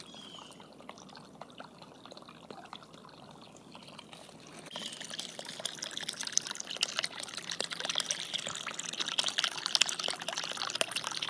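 A small stream trickling over a little waterfall, fainter at first and then louder and splashier from about halfway through.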